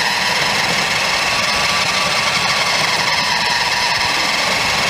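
Radio Shack Dagger RC toy truck's small electric drive motor and gears whining steadily at full speed, with tyre noise from rolling over asphalt.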